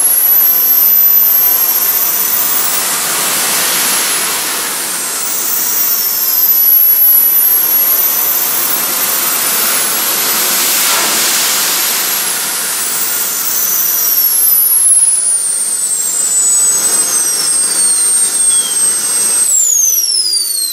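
JetCat P100 RXi model jet turbine running in a Boeing 777 RC model's engine nacelle, a loud hiss with a high whine that rises and falls several times as the throttle is worked. It settles to a steady whine, then shortly before the end it is shut down and the whine falls away as it spools down.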